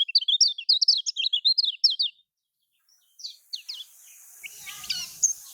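Kecial kuning, a Lombok white-eye, singing a fast chattering run of short, high, downward-sliding chirps. The song breaks off for about a second midway, then picks up again with more spaced chirps.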